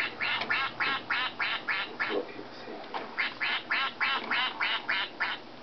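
Toy duck quacking in quick, evenly spaced quacks, about four a second, in two runs with a short pause between them.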